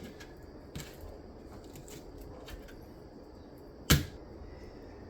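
A few faint clicks over a low background, then one sharp, loud knock about four seconds in, like something hard set down or struck on a kitchen counter.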